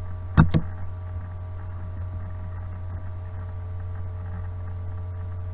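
Steady low electrical mains hum with faint steady tones above it. A short, louder two-part sound breaks in about half a second in.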